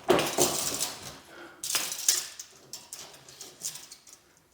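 Clinks and knocks of metal door hinges being handled and set against the door, loudest right at the start and again about two seconds in, then a few faint ticks.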